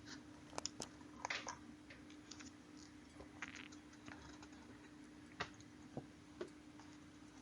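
Faint, irregular metallic clicks and short scrapes of brake parts being handled during a rear caliper pad change, with a few sharper taps spread through.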